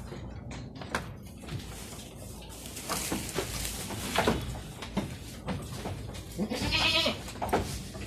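A goat bleating, one long wavering bleat about two-thirds of the way through, among scattered knocks.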